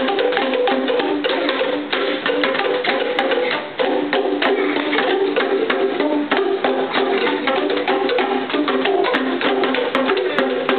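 A group striking boomwhackers, tuned plastic tubes, together in a quick rhythm: many short, hollow pitched notes overlapping in a busy pattern, with a brief dip about four seconds in.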